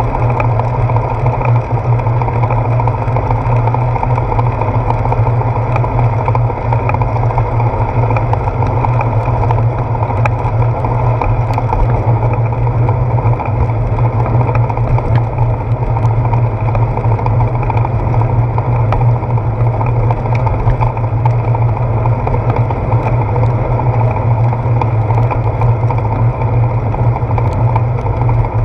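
Steady road and wind noise from a moving bicycle, picked up by a camera mounted on its handlebars while riding over wet pavement: a constant low rumble with a hiss over it.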